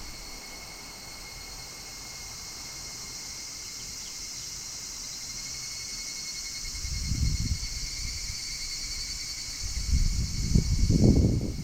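Higurashi evening cicadas calling: a steady, shrill, finely pulsing trill. Low rumbling noise swells up about seven seconds in and more strongly near the end.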